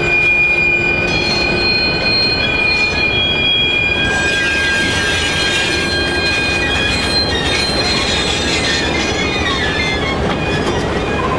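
Train rolling by with its steel wheels squealing on the rails: several steady high-pitched squeals over a low rumble, wavering and gliding in pitch from about four seconds in.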